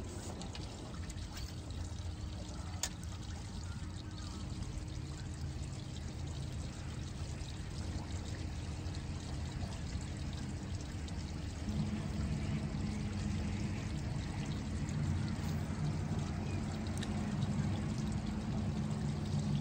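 Water pouring and trickling steadily over a low mechanical hum that rises a little in pitch about twelve seconds in.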